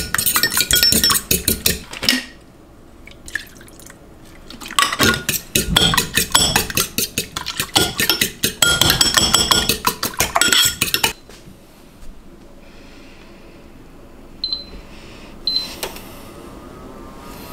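A utensil clinking rapidly against a dish in two bouts, the first about two seconds long and the second about six, with only a few faint light clinks in the quieter stretches.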